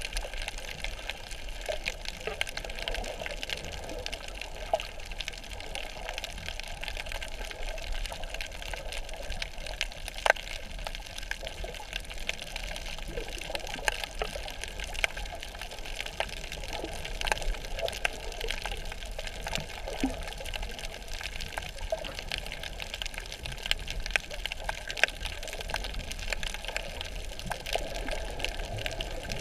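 Underwater ambience heard through a submerged camera: a steady hiss and low rumble with many scattered sharp clicks and crackles.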